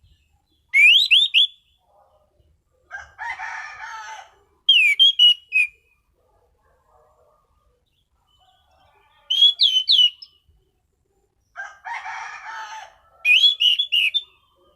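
Orange-banded thrush (anis cendana) singing: short bursts of sharp, rising whistled notes, four times, alternating twice with lower, harsher rasping phrases.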